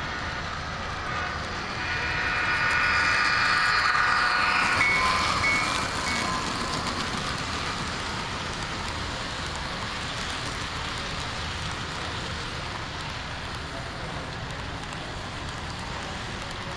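HO scale model freight cars rolling past on the track, their wheels making a steady rolling hiss. About two seconds in, a louder, high steady tone rises over it for about three seconds, then fades.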